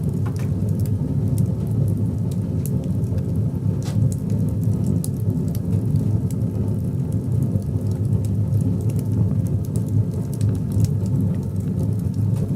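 Wood fire burning in a small metal stove: a steady low roar with frequent crackles and snaps.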